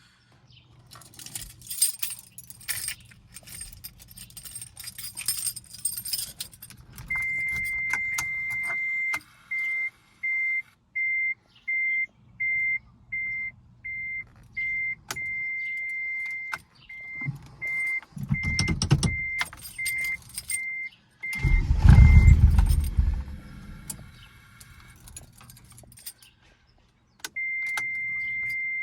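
Keys jingling, then the car's warning chime beeping steadily in a regular rhythm. A Mitsubishi Galant VR4's turbocharged 4G63 four-cylinder cranks briefly, then cranks again, catches and runs for about two seconds before stalling. The owner has fuel and spark and suspects it dies going into closed loop.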